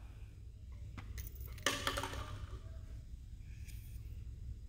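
A few faint clicks and light taps of M&M candies against a plate and a plastic cup as they are sucked up through a paper straw and dropped, over a low steady hum.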